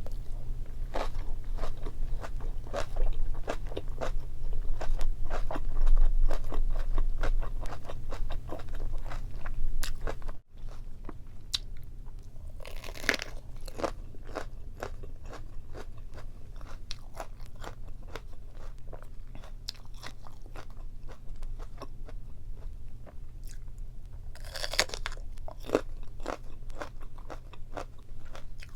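Close-miked chewing of boiled meat and Korean kimchi, with quick crunches several times a second. About ten seconds in, the sound cuts out for an instant, and the chewing goes on more quietly with a few louder crunches.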